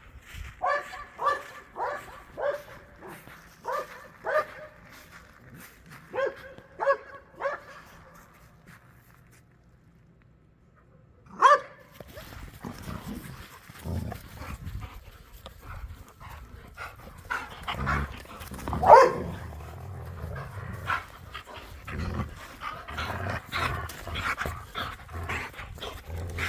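Dog barking: a quick run of about a dozen short barks, a pause, one more sharp bark, then more scattered barks, one of them louder, over a busier background of rustling.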